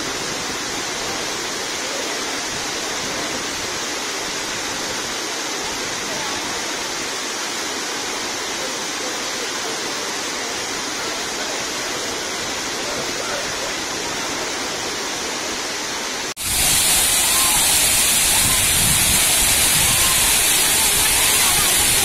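Large waterfall cascading down a rock face, a steady rushing of falling water. About 16 seconds in it cuts abruptly to a louder, fuller rush with more low rumble.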